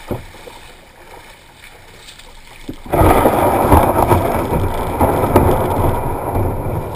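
Kayak hull scraping and grinding up onto a pebble and shell beach, starting suddenly about three seconds in and staying loud; before that, gentle lapping of shallow water.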